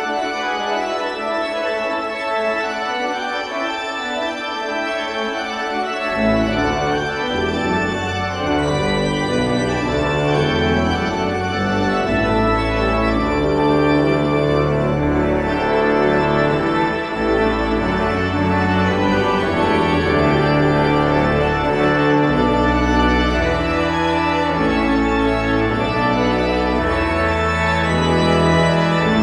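Church pipe organ playing held chords, with deep bass notes joining about six seconds in.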